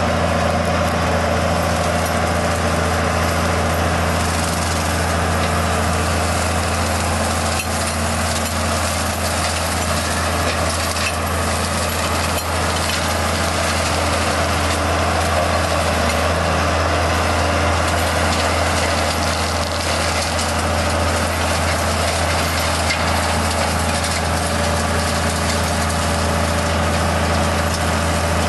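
Tractor engine running steadily under load, driving a Seppi forestry mulcher whose spinning rotor shreds scrub and small trees, with scattered cracks and snaps of wood being chewed up.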